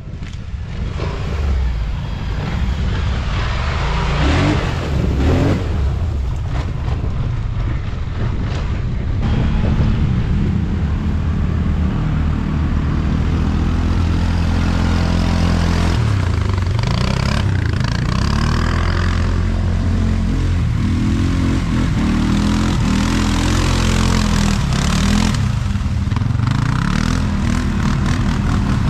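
ATV (quad bike) engine running and revving, its pitch repeatedly rising and falling as the throttle opens and closes.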